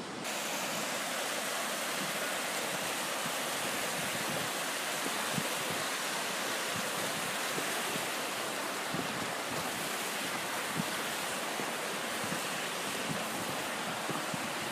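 Steady rushing of a waterfall and creek, an even hiss of falling and flowing water.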